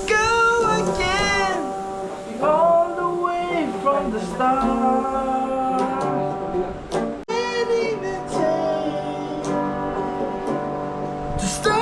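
Acoustic guitar playing with a voice singing over it, the singing held in long notes with vibrato.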